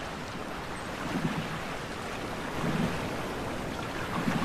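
Steady sea ambience of waves washing and wind, with a soft low swell of water about every second and a half.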